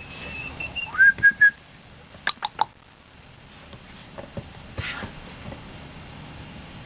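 A person whistling to call a dog: a held high whistle, then a louder rising whistle broken into three short blasts. This is followed by three quick sharp clicks.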